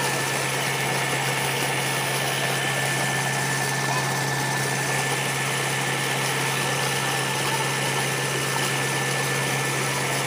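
Tractor engine running steadily, belt-driving the turbine pump of a newly bored tube well, with a steady low hum. Water gushes out of the discharge pipe and splashes into a pit.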